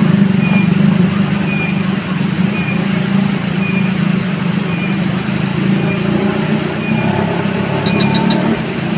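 Steady low mechanical hum, like a motor running, with a short high chirp repeating about once a second and a quick triple tick near the end.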